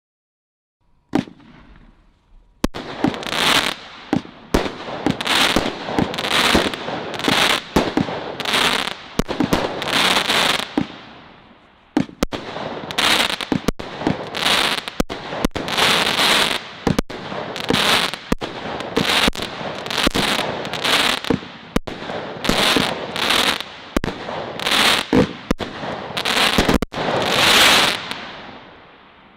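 A 25-shot Crazy Crackles firework cake firing its shots one after another, roughly once a second. Each shot is a sharp bang followed by a burst of dense, fizzing crackle from the crackling stars. A single click comes about a second in, the volley starts about three seconds in, there is a brief lull about halfway, and the last burst crackles away shortly before the end.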